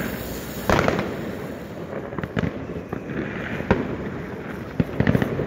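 Firecrackers and fireworks going off in the street: a quick cluster of sharp bangs, the loudest, just under a second in, then single bangs every second or so, over a constant background of crackling and distant pops.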